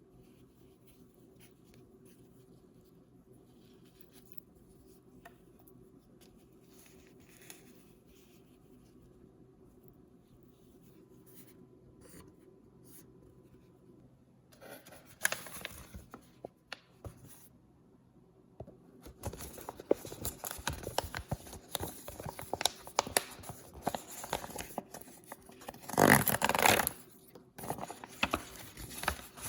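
Paper and plastic blind-bag packaging handled and torn open. It is nearly quiet at first, with a few small taps. About halfway in comes a short rustle, then steady crinkling and tearing with sharp peaks, loudest a little before the end.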